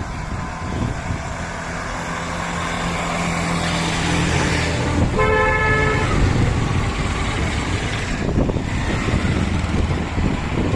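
Road traffic with vehicle engines running. A horn honks once for under a second, about five seconds in.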